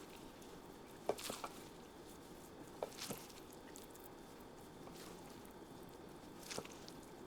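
A few light clicks and soft taps of food preparation in a kitchen: a cluster about a second in, two more near three seconds, and one near the end, over a faint steady hiss.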